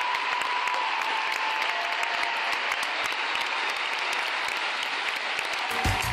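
A large theatre audience applauding steadily, a dense mass of hand claps. Music starts abruptly just before the end.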